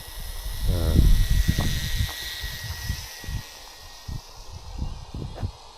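Gusty wind buffeting the microphone in uneven low rumbles, strongest about a second in, with the faint steady whine of the RC plane's small electric motor above it.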